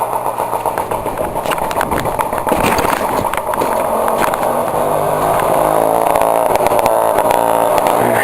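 Moped engine running with its exhaust pipe removed: loud and unmuffled, with a spell of sharp crackles about two seconds in and growing a little louder as it comes near.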